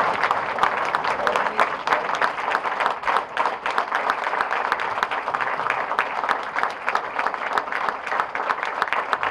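An audience applauding: many people clapping steadily.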